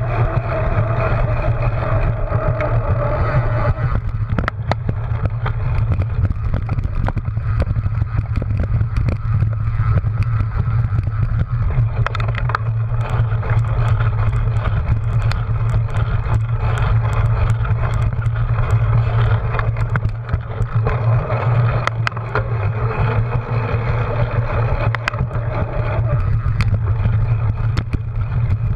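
Steady wind rumble and rolling noise on a cyclocross bike's handlebar-mounted camera at race speed, with a constant low drone and many small knocks and rattles as the bike bumps over rough ground.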